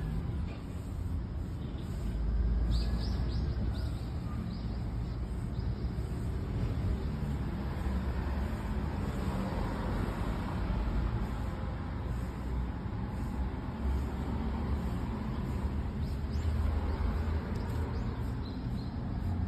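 Steady low rumble of road traffic, with a few short high chirps about three seconds in.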